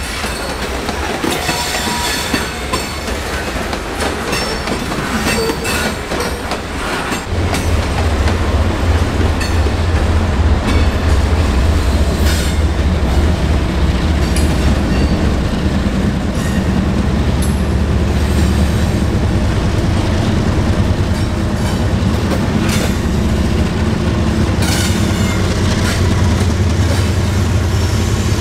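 A train rolling past on the rails: wheels clicking over rail joints, with wheel squeal. About seven seconds in, a deep, steady rumble sets in and the sound grows louder.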